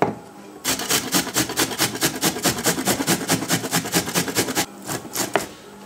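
A red onion grated by hand on a stainless-steel box grater: a quick, even run of grating strokes, about five or six a second, for roughly four seconds, then two more strokes near the end.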